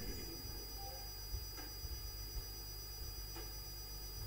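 Quiet room tone: a steady low hum with a faint high-pitched whine, and a couple of faint clicks.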